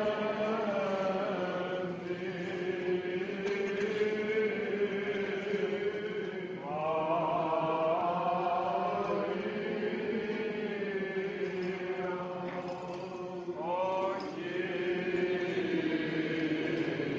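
Greek Orthodox Byzantine chant: voices sing drawn-out melodic phrases over a steady held low note, with fresh phrases starting about seven and fourteen seconds in.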